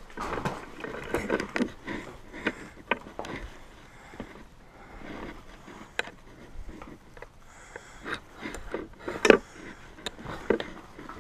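Footsteps crunching and scuffing over a debris-covered floor, with irregular scrapes and knocks; the loudest knock comes about nine seconds in.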